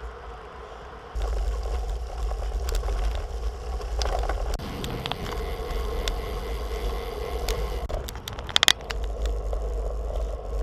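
Riding noise from a road bike: a steady rumble of wind and tyres that steps up about a second in, with a few sharp clicks, probably rattles over the surface, at about eight and a half seconds.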